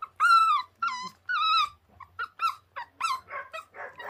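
A 24-day-old puppy whining in a string of high-pitched cries, the first few long and loud, then shorter whimpers turning into rough little grumbles near the end.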